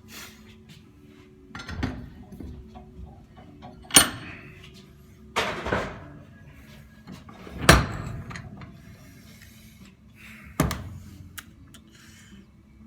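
Metal clanks and knocks of a wrench working on a Graco Fireball air-operated pump: five louder knocks a second or two apart, with lighter taps and scrapes between.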